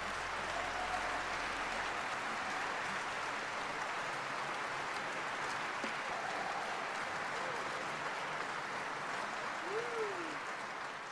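A large concert audience applauding steadily, with a brief rising-and-falling call near the end.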